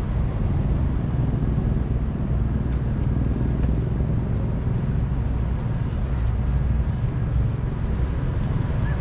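Outdoor city ambience: a steady low rumble of traffic, with no distinct events standing out.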